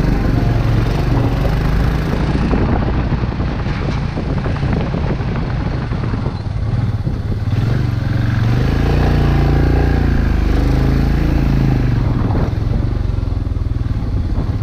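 Royal Enfield Himalayan's single-cylinder engine running at low speed with a steady rattle over it, then revving up and down from about halfway through.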